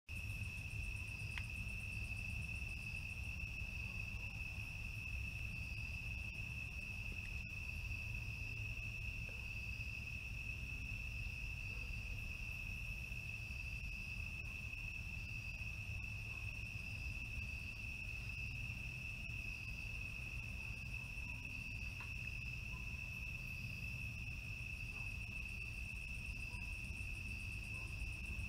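Night insect chorus: one steady, unbroken high trill, with a fainter pulsing call above it repeating about every second, over a low steady rumble.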